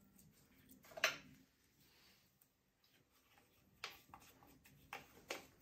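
A few light metallic clicks and knocks as parts are handled and seated inside the aluminium casing of a ZF 5HP24A automatic gearbox. The sharpest comes about a second in, and three more come near the end.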